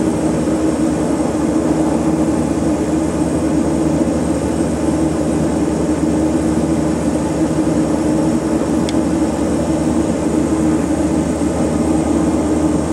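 Turboprop engine running steadily at ground idle, heard from inside the cockpit, its gas generator idling and its propeller unfeathered into low pitch. A steady, even drone that does not change.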